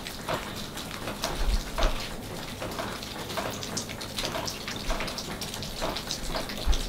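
Gas grill sizzling and crackling steadily as leftover chicken drippings burn and smoke on the grates, with a few soft low thumps.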